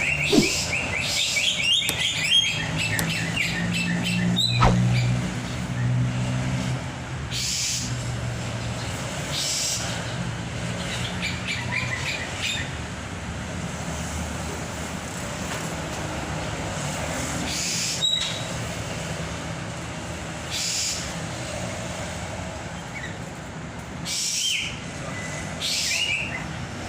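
Caged songbird chirping in quick runs of repeated notes, near the start and again near the end, over a low steady hum.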